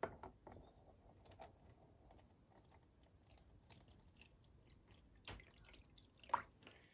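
Faint trickle and drip of water poured from a plastic jug into a plastic box, with small clicks and two soft knocks near the end.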